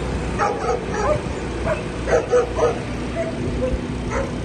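A dog barking in short, sharp yips, two runs of about three barks each, over the steady low drone of the excavator and water-pump engines running.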